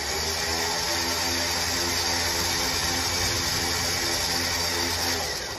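Electric 13,000 lb winch running under its remote, its motor spooling the synthetic line back in with a steady whine. It winds down and stops near the end.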